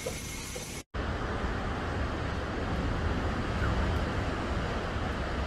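Steady hiss of heavy rain that cuts off abruptly just under a second in, followed by storm wind rumbling steadily on the microphone over the wash of heavy surf breaking.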